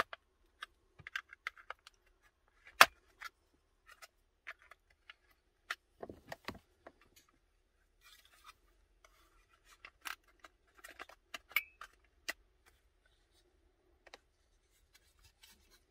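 Scattered plastic clicks, snaps and scrapes as a flathead screwdriver pries apart the snap-together housing of a Dodge Journey's climate control unit, releasing its clips. One sharp snap about three seconds in is the loudest, and a run of clicks follows later as the housing comes apart.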